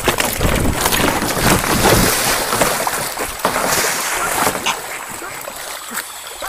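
Water splashing and a goose's wings beating as it thrashes against a kayaker, then hurried kayak paddle strokes through the water. The splashing eases off about five seconds in.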